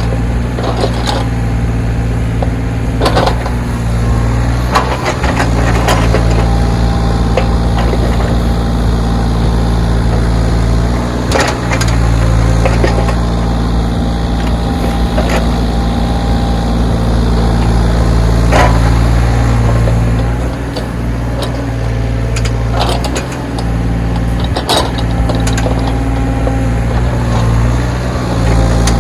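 Backhoe engine running steadily while it works snow, with sharp clanks now and then.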